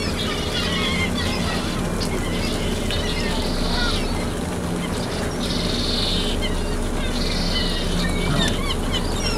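A flock of gulls calling: many short cries throughout, with three longer, louder calls in the middle. Under them runs the steady low hum of the whale-watch boat's engine.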